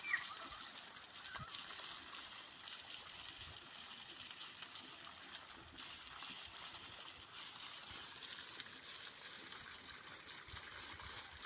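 Small waterfall pouring down a slope and splashing onto the ground and onto a person bathing under it: a steady hiss of falling water.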